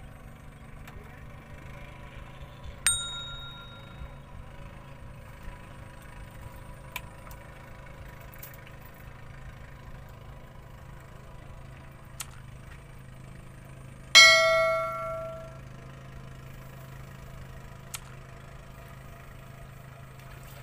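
Two ringing metallic strikes, a light ding about 3 seconds in and a louder clang about 14 seconds in that rings and fades over a second or so, over a steady low engine hum with a few small clicks.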